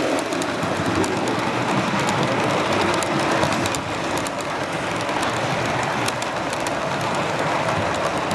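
Model freight train cars rolling past on the layout track: a steady rumble of wheels on rail with light clicking.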